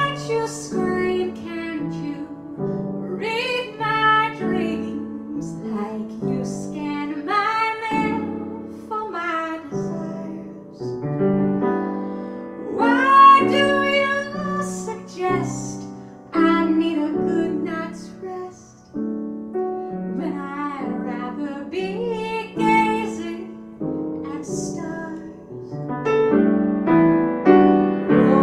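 A woman singing a jazz song while accompanying herself on a grand piano, her held notes wavering with vibrato.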